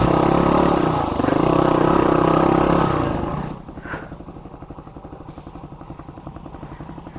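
Yamaha WR250X's 250 cc single-cylinder engine, fitted with a Delta Barrel 4 exhaust, running loud and steady under throttle. At about three and a half seconds it drops off to a much quieter, evenly pulsing off-throttle beat.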